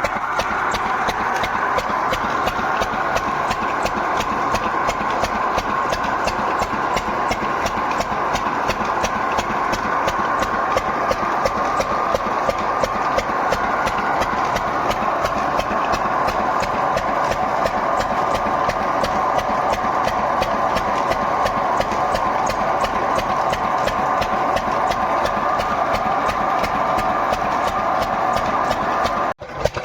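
An engine running steadily with a fast, even knocking beat. It breaks off briefly near the end.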